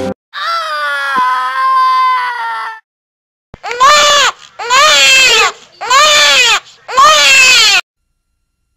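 Newborn baby crying: one long wail, then after a short pause four shorter cries in quick succession, each rising and falling in pitch.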